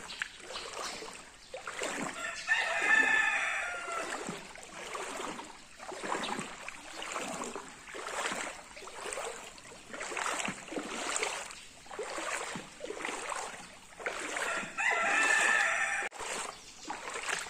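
A rooster crowing twice, about twelve seconds apart, each crow lasting about a second and a half. Between the crows runs a steady series of noisy swishing strokes, roughly one a second.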